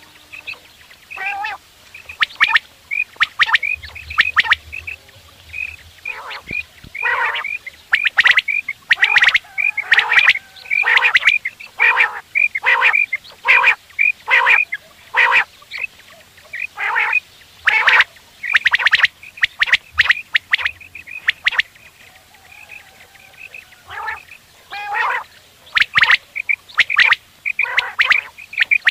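Quail calling over and over: short high notes mixed with harsh, rasping calls, roughly once or twice a second, with a few short pauses.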